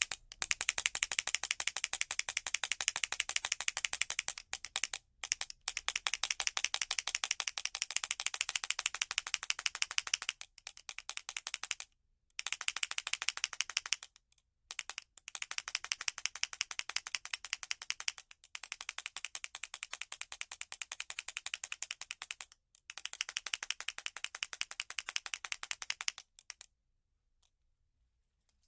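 Toy matraca (ratchet rattle) being spun, its wooden or plastic tongue clacking rapidly over the cog in a fast run of clicks. It plays in several long bursts with brief pauses between them, and stops a couple of seconds before the end.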